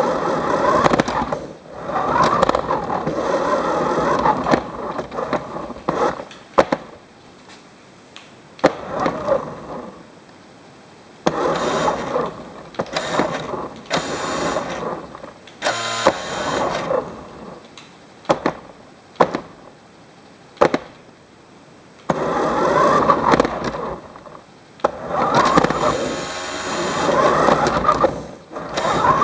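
Small motorised toy car driving in spurts across a wooden floor, its motor whirring and wheels rolling, stopping and starting several times, with a few sharp clicks and knocks in the pauses.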